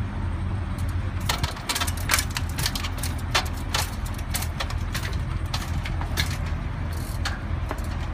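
Road bike being hopped up concrete stairs: a run of sharp clacks and knocks, a few each second, starting about a second in, as the wheels come down on each step and the chain and frame rattle. A steady low hum lies underneath.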